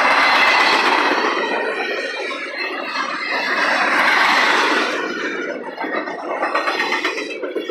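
Double-stack intermodal well cars rolling past, a steady rumble and rattle of wheels on rails with a high wheel squeal over it. It is loudest near the start and again about four seconds in.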